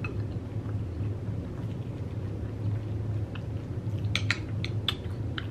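Eating sounds of a person chewing a hot Cheeto taco bowl, with a few sharp clicks about four seconds in, over a steady low hum.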